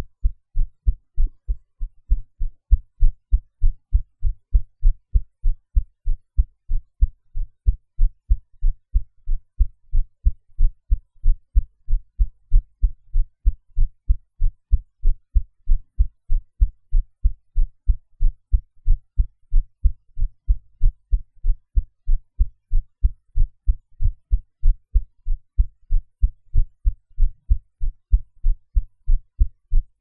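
A human heartbeat recorded close against the chest: a steady, even rhythm of low, paired lub-dub beats with the background noise edited out.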